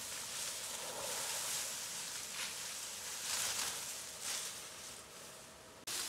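Rustling of dry plant material, coming in swells about once a second.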